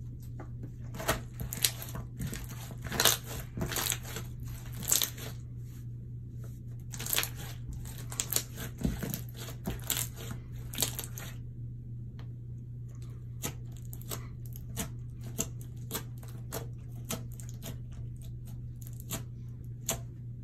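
Slime being squished and kneaded by hand, giving irregular wet crackles and sharp pops, thick for the first half and sparser after about twelve seconds. A steady low hum runs underneath.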